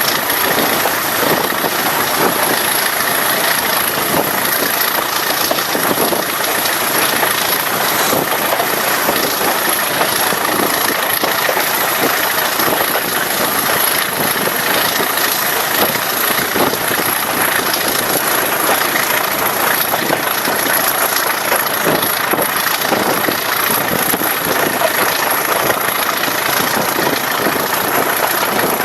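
Class 20 diesel locomotive's English Electric V8 diesel engine running steadily at an even pitch, with a steady high whistle over it.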